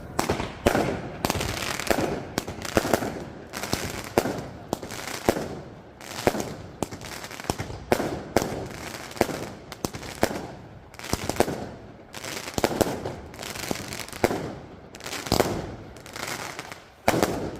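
'Alligator' firework going off in a rapid series of sharp bangs, roughly one to two a second, with crackling between them and a loud bang near the end.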